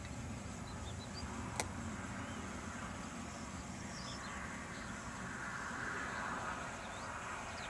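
Airbus A350 XWB's Rolls-Royce Trent XWB jet engines at taxi power, heard from a distance as a steady low rumble with a hiss that swells a little about five seconds in. A single sharp click about a second and a half in.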